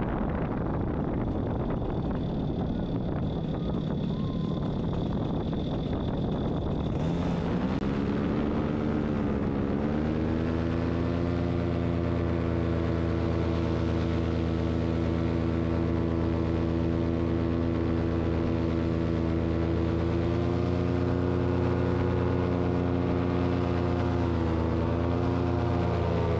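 Paramotor engine and propeller running in flight, with wind rush over the microphone. About seven seconds in, the engine's pitch climbs, and from about ten seconds it holds a steady, even drone.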